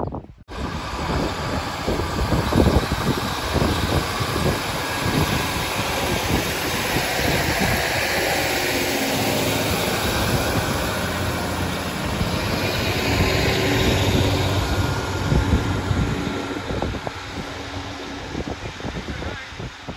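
A train passing: a loud, steady rush of wheel and engine noise that starts abruptly about half a second in and fades away near the end.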